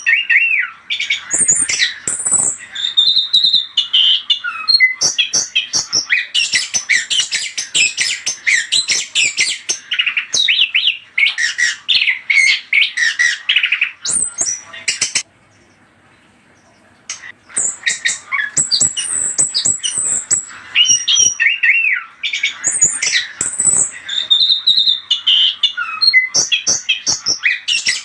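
Chestnut-capped thrush (anis kembang) song used as a lure: a rapid, varied run of whistled and chattering phrases, with a pause of about two seconds midway before the song resumes.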